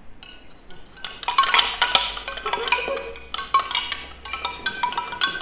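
A hand-held wind chime of wooden tubes shaken so the tubes clink and clatter against each other: a few light taps at first, then a dense, irregular jangle of ringing strikes from about a second in.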